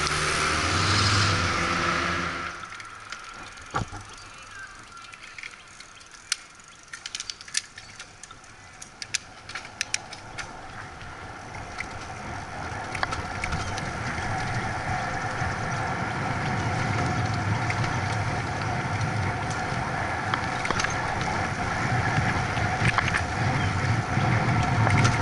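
A bicycle being ridden. A motor vehicle's engine is loud for the first two seconds or so. Then comes quieter road noise with scattered sharp clicks and rattles from the bike, building into a steady rush of wind and tyre rumble that grows louder as the ride goes on.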